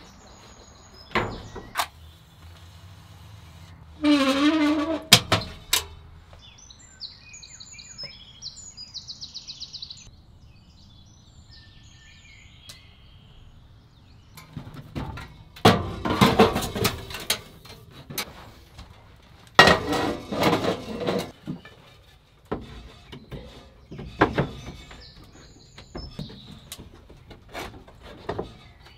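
Small birds chirping, with one short trill, between wooden knocks, thunks and spells of clattering handling noise from pallet-wood boards being moved. There is a brief creak a few seconds in.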